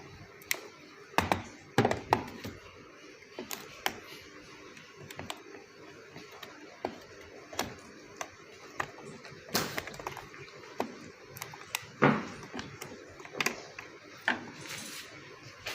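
Irregular clicks, taps and knocks of hands and tools working on a washing machine's plastic control-panel housing and circuit board during a board swap, with a few heavier thuds along the way.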